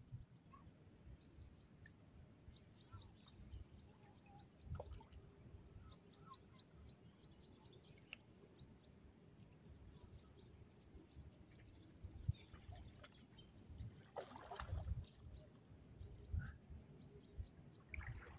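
Faint lakeside ambience with a low rumble, rows of faint high chirps or ticks through the first half, and a louder rustling, splash-like noise about 14 to 15 seconds in.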